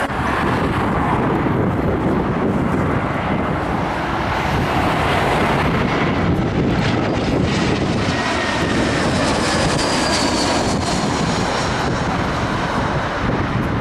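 Twin-engine Airbus A320-family jet airliner on final approach, passing low overhead: a loud, steady rush of engine noise, with a faint whine that slides down in pitch as it goes past.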